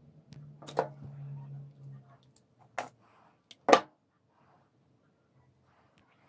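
A few sharp clicks and taps from small parts of a disassembled disposable vape being handled in the fingers, the loudest about four seconds in. A low steady hum stops about two seconds in.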